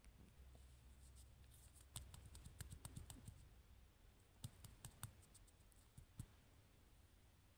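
Near silence: faint room tone with two loose runs of small, sharp clicks, one about two seconds in and another just past the middle.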